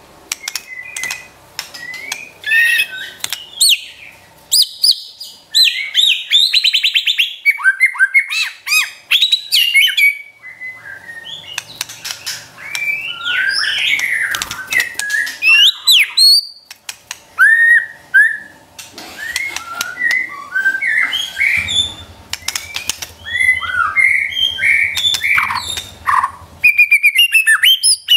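White-rumped shama singing in the rapid 'trotol' style: quick runs of varied whistles, trills and sharp clicking notes in short phrases with brief pauses.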